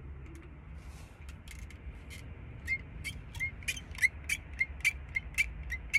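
Plastic frame of a pair of Toroe sunglasses creaking and clicking as it is flexed and worked. It starts as scattered ticks, then from about halfway becomes a regular run of short squeaks, about three a second. The owner says the frame squeaks like this every time the glasses are adjusted, and puts it down to poor quality.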